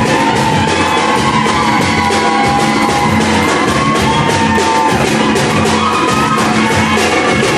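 Live samba batucada: a drum section of surdo bass drums and snare drums playing a fast, even beat, with voices yelling and whooping above the drums.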